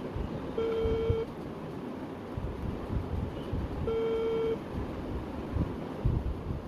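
Mobile phone ringback tone as an outgoing call rings: two steady beeps about three seconds apart, over a low background rumble.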